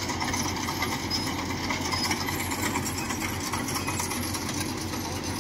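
Engines of farm machinery, a rice combine harvester and a tractor, running steadily with an even low drone.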